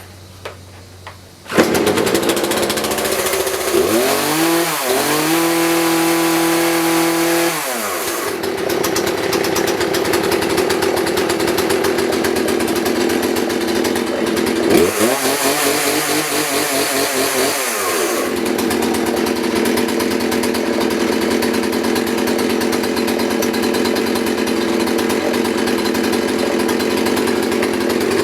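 Craftsman 42cc two-stroke chainsaw catching about a second and a half in on a cold start, choke on and primed, then running steadily. It is revved up and held for a few seconds twice, dropping back each time.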